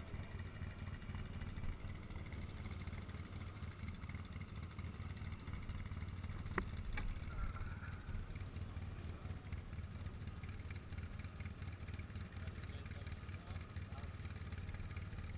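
Faint, steady low rumble of ATV engines running at a distance, with a single sharp click about halfway through.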